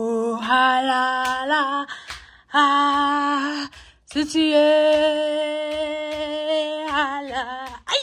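A woman's voice singing in three long held notes, the last held for about four seconds, each wavering as it ends.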